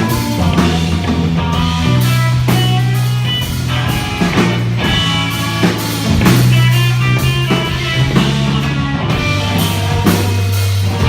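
Live rock band playing an instrumental passage: drum kit keeping a steady beat under electric guitar and a held bass line.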